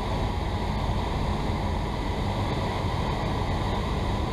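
Steady cabin noise of a Cessna 172 in flight: the propeller engine's drone mixed with rushing airflow, inside the cockpit. The engine is throttled back for the descent to final approach.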